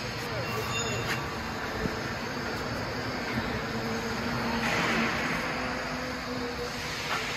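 Steady industrial machine noise, a continuous hum under a hiss with faint steady tones; the hiss swells briefly about five seconds in.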